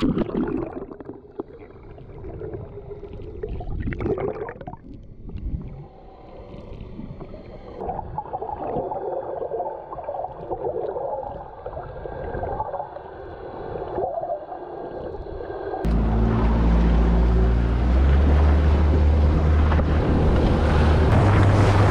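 Muffled underwater sloshing and gurgling of water around a submerged camera. About three-quarters of the way through it cuts abruptly to a boat's Yamaha outboard motor running under way with wind on the microphone, the engine pitch stepping up twice as the boat speeds up.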